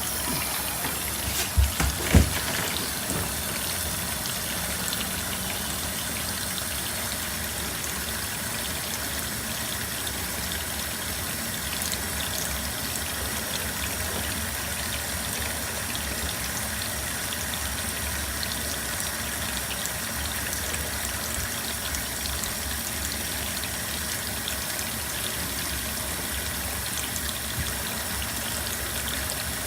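LG dishwasher running a quick wash cycle: a steady rush of water sprayed and circulating inside the tub, after a few knocks in the first couple of seconds.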